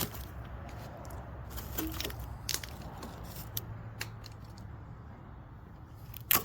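A few light, scattered metallic clicks and clinks, like small hardware being handled, over a steady low hum.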